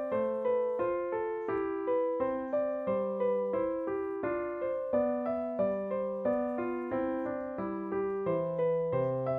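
Background solo piano music: a steady stream of single notes, each struck and fading, about two or three a second.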